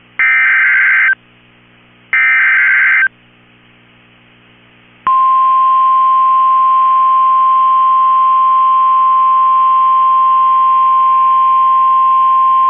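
NOAA Weather Radio alert signals for a tornado warning: two roughly one-second warbling SAME digital header bursts, a pause, then about five seconds in the single steady 1050 Hz warning alarm tone begins and holds.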